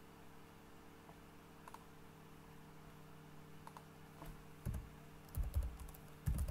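Typing on a computer keyboard: a few faint clicks, then a quick run of louder keystrokes in the last two seconds, over a low steady hum.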